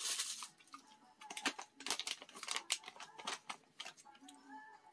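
Crinkly plastic snack bag rustling as a hand reaches in, a quick run of sharp crackles and rustles.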